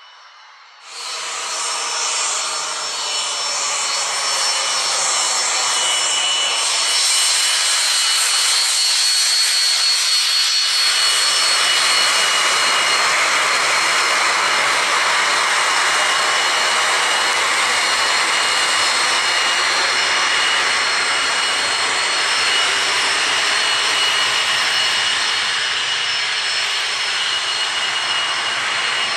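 Jet Provost's Armstrong Siddeley Viper turbojet running at taxi power: a loud steady rush with high, steady whistling tones on top. It comes in suddenly about a second in and stays steady.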